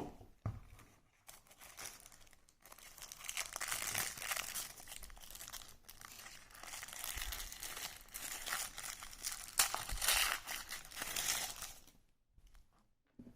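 Watch packaging crinkling and rustling as the wristwatch is unwrapped, stopping about a second before the end.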